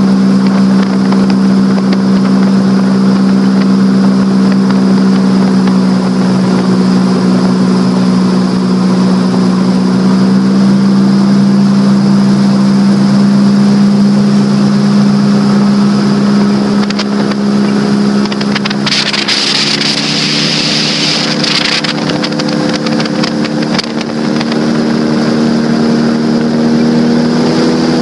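Airboat engine and air propeller running steadily, a loud droning note. About nineteen seconds in, a rushing hiss comes up for a few seconds and the engine note drops a little, then the pitch climbs again near the end.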